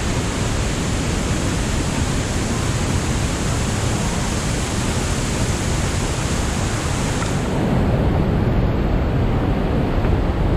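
Fast-flowing Rhine water rushing steadily, a loud, dense wash of noise. A little past two-thirds of the way in, the high hiss drops away and the deeper rush grows slightly louder.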